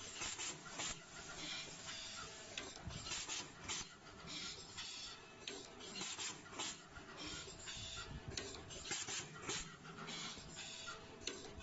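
Fully automatic wire cutting, stripping, twisting and tin-soldering machine running: a rapid, irregular clatter of clicks and short hisses from its pneumatic actuators and wire-feed mechanisms, over a faint steady hum.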